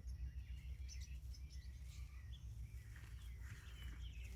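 Birds chirping in short repeated calls over a low steady rumble, with a few faint scattered clicks and rustles.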